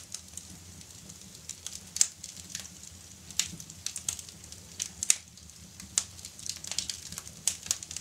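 Wood logs burning on a fireplace grate, crackling with irregular sharp pops and snaps over a faint low steady hum.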